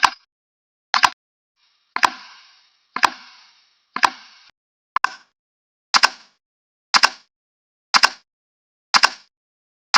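Timer ticking sound effect: a sharp double click once a second, starting after silence. The ticks at about two, three and four seconds in carry a longer hissing tail.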